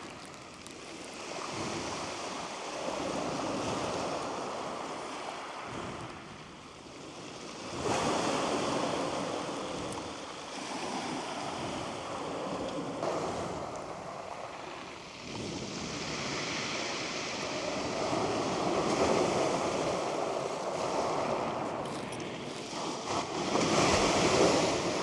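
Waves breaking and washing up a shingle beach, the surf swelling and fading every few seconds.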